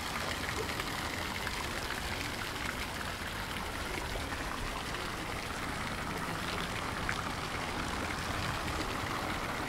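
Steady rain falling, with many small drop ticks close by.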